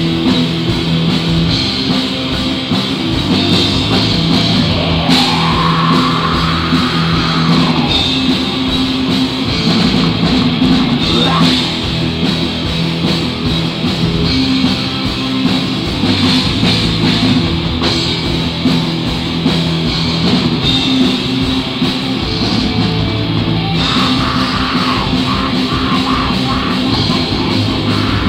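Black metal band playing live: distorted electric guitars and bass over a drum kit, loud and dense throughout. A vocalist comes in on the microphone near the end.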